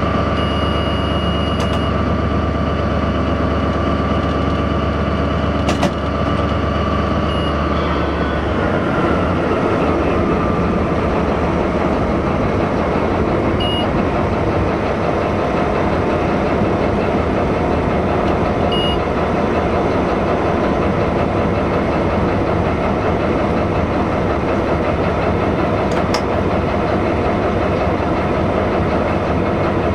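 Diesel locomotive engine and running gear heard from the driver's cab as the train rolls along. About eight seconds in the sound changes: a whining tone slides down and the steady low hum gives way to a rougher, even rumble. There is a click about six seconds in and a few faint short beeps.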